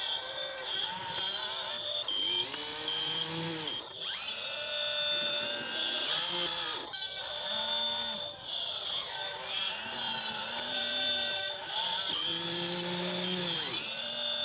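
Electric motors of an E598 RC excavator whining as it works, the pitch rising and falling in repeated sweeps as the arm and boom move, over a steady high-pitched whine.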